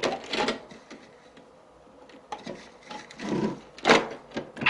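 Light knocks and scraping of small plastic toys being handled as doll clothes are put into a toy washing machine. There are a few sounds near the start and again about three to four seconds in, with a quiet stretch between.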